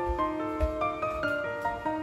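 Gentle background music: a keyboard melody of short, quickly changing notes.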